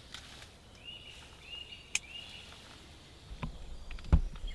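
A small bird chirps three short arched notes, then a low rumble sets in, and about four seconds in comes a single sharp thump, the loudest sound: the discharge of a silenced Air Arms S410 pre-charged air rifle.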